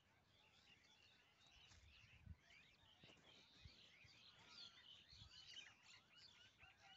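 Faint chorus of small birds chirping, many short quick notes overlapping, with a few soft low thumps.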